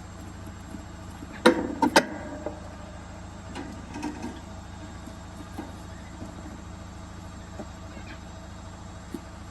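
Three sharp knocks in quick succession about a second and a half in, then a few faint scattered taps over a steady background hum.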